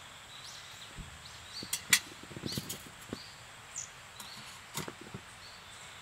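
A canister gas camping stove being set up by hand: a few sharp metallic clicks and clinks, the loudest about two seconds in. Small birds chirp now and then in the background.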